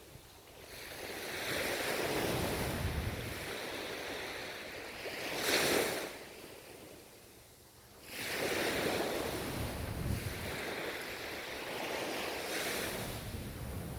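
Ocean waves breaking and washing up on the shore, swelling and ebbing: one wave crashes more sharply just before the middle, then a quiet lull before the next surge. Some wind noise on the microphone.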